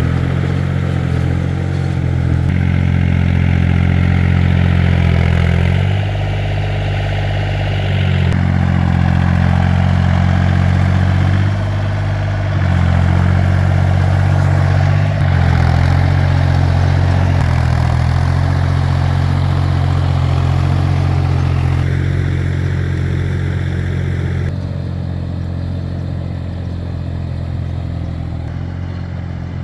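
A farm tractor's engine running steadily, its level and tone shifting up and down several times.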